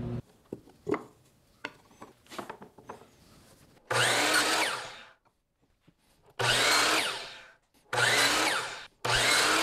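A few light knocks of wood being handled, then four short bursts of a DeWalt sliding compound miter saw crosscutting a thin strip of wood. Each burst starts suddenly and dies away with falling pitch as the blade winds down.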